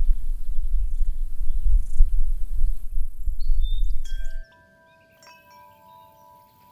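A loud low outdoor rumble with a faint high hiss that cuts off abruptly about four and a half seconds in. Chime tones ring in just before the cut, several notes at different pitches that sustain and overlap.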